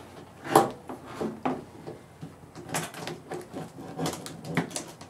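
Door panel retaining clips of a 1968 Chrysler 300's door popping out as the trim panel is pried and pulled away from the door: a string of irregular sharp snaps and clicks, the strongest about half a second in.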